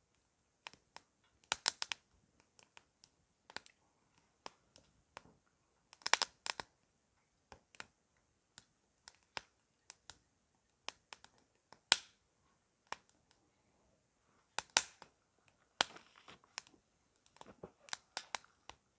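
Small twig fire in a homemade hobo stove crackling, with sharp snaps and pops coming at irregular intervals.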